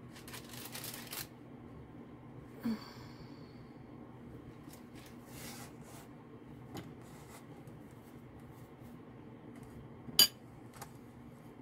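Quiet kitchen handling noises as raw pumpkin slices and a bowl of sugar rub are handled: a soft rustle at the start, a light knock a few seconds in, and one sharp click near the end, the loudest sound.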